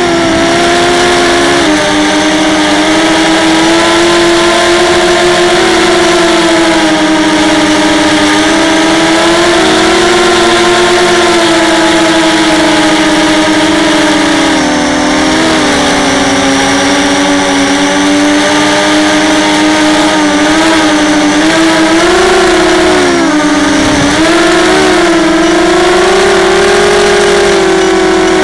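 ZMR250 racing quadcopter's brushless motors and propellers whining as it flies, heard up close from the onboard camera. The pitch rises and falls with the throttle, dipping about halfway through and wobbling again near the end.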